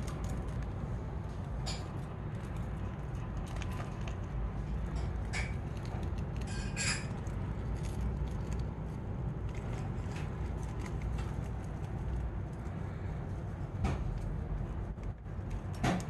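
Steady low rumble with scattered light clicks and metallic clinks from a budgie climbing and tugging at lettuce inside a wire cage, with a couple of brief sharper high sounds around the middle.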